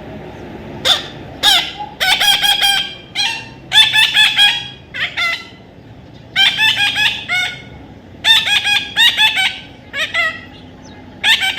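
Parrot calling: loud, short squawks repeated in quick runs, in groups separated by pauses of about a second.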